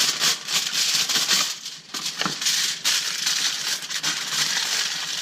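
Aluminium foil crinkling and crackling as it is folded into a packet around a fish fillet, with a brief pause just under two seconds in.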